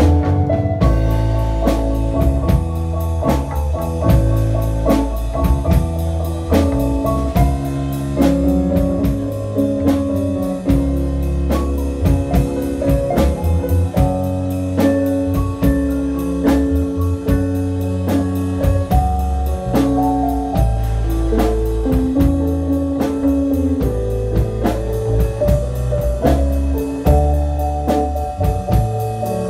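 Live band playing electric guitar, bass guitar, keyboard and drum kit, with a steady drum beat under sustained guitar and keyboard notes.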